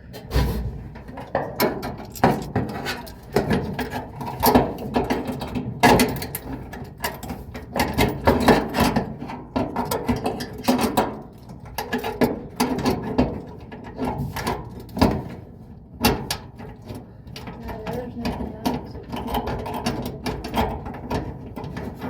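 Repeated clicks, knocks and metal rattles of parts being handled and fitted by hand inside a Samsung dryer cabinet, during an idler pulley replacement.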